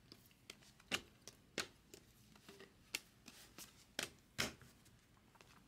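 Glossy Bowman Chrome baseball cards being flipped off a hand-held stack one at a time: faint, quick clicks and slides of card on card, about two a second at an uneven pace.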